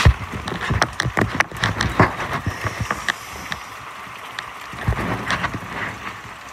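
Hail and rain pelting hard surfaces: many sharp ticks and clatters over a steady hiss of rain. The hits are thickest in the first three seconds and come again around five seconds in, with low thumps underneath.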